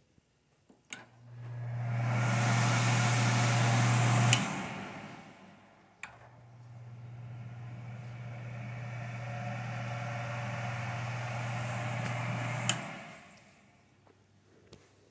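Jenn-Air JED8130ABD downdraft cooktop's vent blower switched on with a click. It spins up to a loud rush with a steady hum, is clicked off about three seconds later and winds down. It is then clicked on again and runs at a quieter, lower speed for about six seconds before it is clicked off and winds down. The blower is working as it should.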